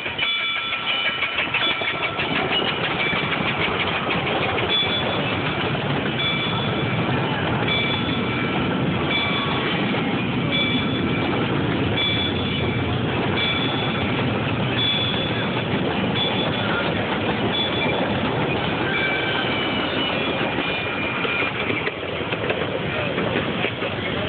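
Ride-on miniature train, led by a small steam locomotive, rolling past over the rails with a steady clatter, while a crossing bell rings about once a second.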